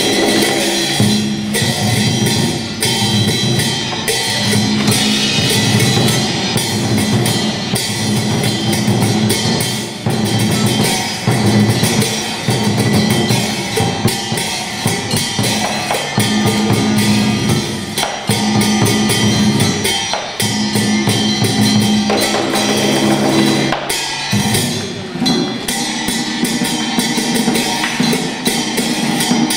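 Traditional Vietnamese water puppet theatre music: busy drumming with cymbals and other percussion over sustained low melodic tones.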